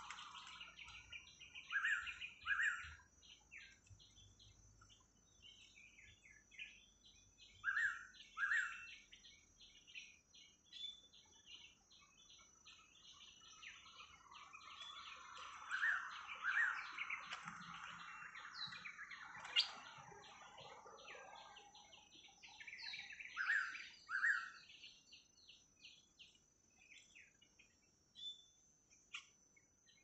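Forest birdsong: one bird repeats a loud two-note call about every seven seconds, over the scattered short chirps of other birds and a faint steady high insect drone.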